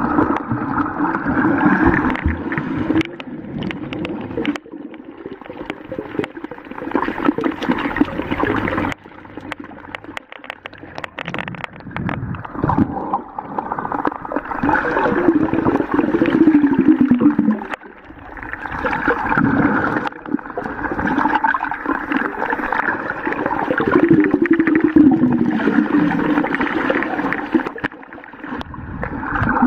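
Underwater bubbling and gurgling of water, swelling and fading every few seconds, with crackling and a couple of low, falling, moaning sweeps.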